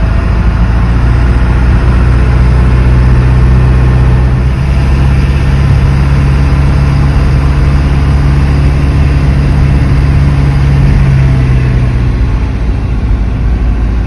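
Vehicle engine and road noise heard from inside the cabin while driving: a steady low drone over a broad hum of tyres and air. The drone eases off near the end.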